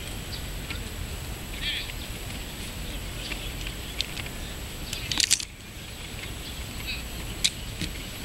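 Open-air field ambience: a steady low rumble with faint, scattered bird chirps. A few sharp clicks stand out, the loudest cluster about five seconds in.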